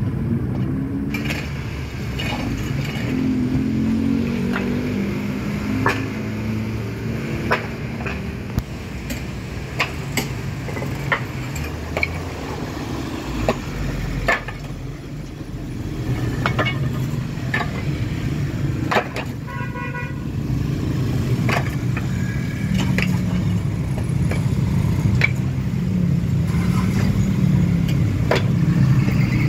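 Mini excavator at work: its diesel engine running, its pitch rising and falling with the load, with irregular sharp knocks every second or two.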